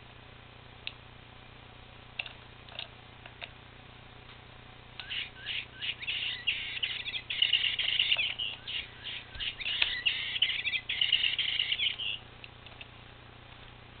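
Electronic bird chirps from a cat's bird-on-a-stalk toy, a quick run of high, twittering chirps starting about five seconds in and lasting some seven seconds as the cat bats the toy. A few light ticks come before it.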